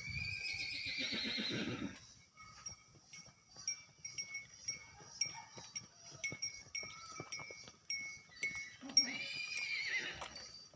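A strange animal cry, heard twice: a long wavering call that rises and falls, about two seconds each, at the start and again near the end. Steady, evenly repeated high chirping goes on underneath.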